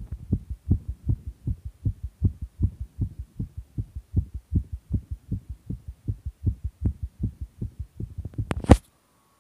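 Fast human heartbeat: an even run of low thumps, about three a second. Near the end a sharp knock, after which the sound cuts off.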